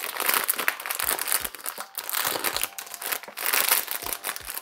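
Shiny black foil bag crinkling and crumpling in the hands as a blind-box figure is worked out of it: a dense, irregular crackle.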